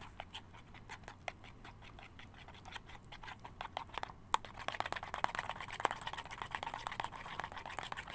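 Metal spoon stirring a thick, clumping white-glue slime mixture in a plastic bowl: a quick run of small clicks and scrapes of the spoon against the bowl. It gets busier and louder from about halfway through, with one sharper click.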